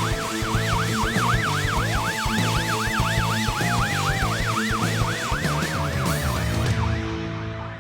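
Fire engine sirens: an electronic siren yelping rapidly, about four sweeps a second, over a second siren slowly falling in pitch and steady horn blasts underneath. The yelp stops near the end and the sound fades as the apparatus moves away.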